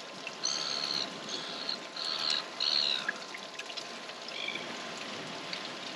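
A series of short, high calls, four in quick succession and one more a little later, over a steady hiss.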